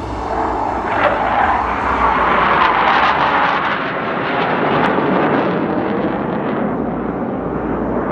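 Military jets of a formation of a Panavia Tornado, an F-16 and a Eurofighter Typhoon flying past: loud jet noise that swells to a peak about two to three seconds in and then slowly fades.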